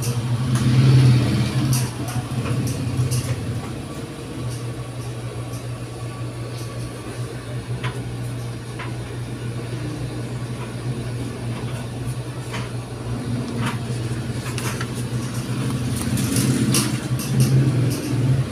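Paper pages of an instruction booklet being handled and turned, with short rustles and crinkles, heard over a steady low hum.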